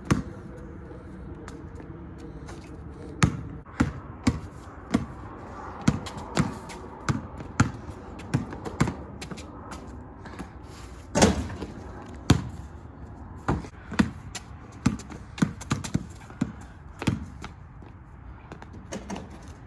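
A basketball dribbled on an asphalt driveway: many sharp bounces in an uneven rhythm, sometimes several a second, with one louder bang about eleven seconds in.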